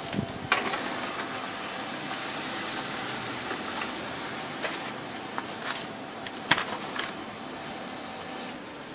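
HP LaserJet P1102 laser printer printing a test page: a steady mechanical whir with a few sharp clicks, easing off near the end.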